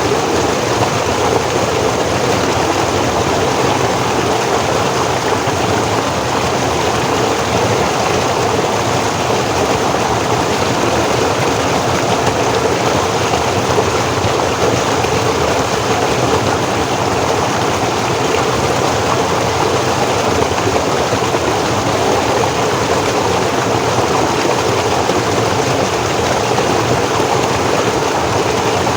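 Forest stream flowing: a steady, unbroken rush of water, fullest in the low-to-middle range.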